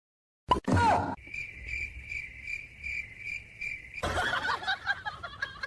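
Steady insect chirping, about three chirps a second. It comes after a brief loud sound with a sliding tone about half a second in and gives way to a busier jumble of noise in the last couple of seconds.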